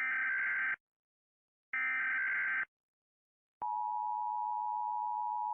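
Emergency Alert System broadcast tones: two bursts of SAME header data, each about a second long with a second's gap between them, then about three and a half seconds in the steady two-tone attention signal begins.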